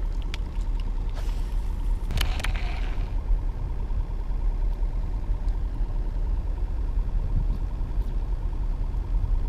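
Steady low rumble of wind buffeting the camera microphone over open water, with a few light clicks near the start and a brief rushing sound about two seconds in.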